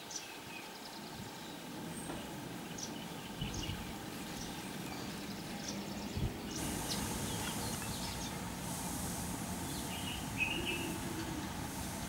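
Outdoor ambience: faint, scattered short chirps of small birds over a low, steady rumble, with a hiss that comes in about six and a half seconds in.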